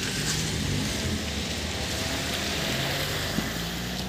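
A motor vehicle going past on the road: a steady rush of tyre and engine noise over a low rumble, swelling at the start.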